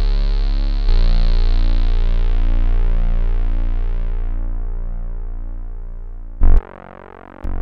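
Roland Juno-106 analog synthesizer playing a low bass patch. A note starts about a second in and is held while its tone slowly darkens and fades as the filter closes. A short, loud note comes near the end.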